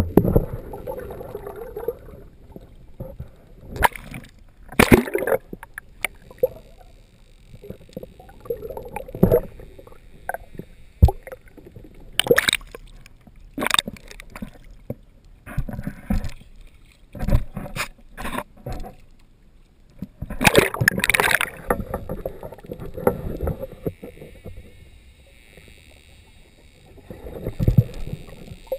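Water sloshing and gurgling around a GoPro's waterproof housing as it rides at the waterline, broken by about ten irregular sharp splashes and knocks, with a cluster of them about two-thirds of the way through.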